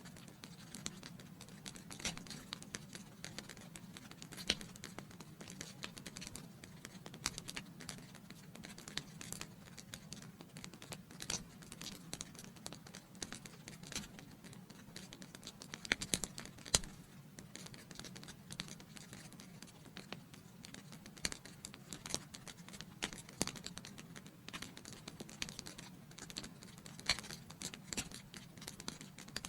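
Wood fire in a fireplace crackling: a soft steady burning hiss with irregular sharp pops and snaps, a few louder pops scattered through.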